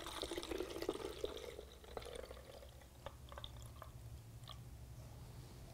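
Homemade alcohol hand sanitiser trickling faintly from a plastic measuring jug through a plastic funnel into a small bottle. The stream eases after about two and a half seconds into a few scattered drips.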